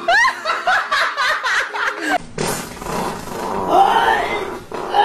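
A small dog held to a karaoke microphone gives a quick run of short rising-and-falling yelps, mixed with laughter. After a cut, a box fan blows with a steady rush, with one short voiced cry near the end.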